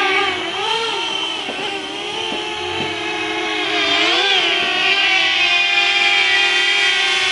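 A multirotor drone's propellers buzz steadily, with several motors' tones layered together, and the pitch swells and falls briefly about a second in and again around four seconds in as the drone manoeuvres.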